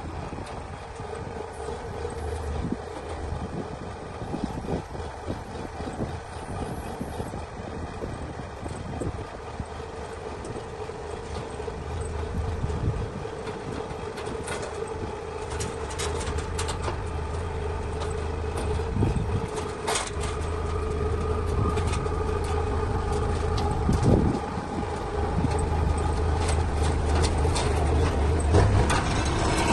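Diesel engine of heavy farm machinery running steadily under load, with scattered metallic clanks and rattles, growing gradually louder.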